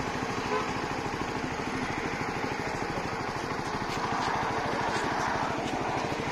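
CFMOTO 300NK's single-cylinder engine idling steadily, an even run of quick low pulses.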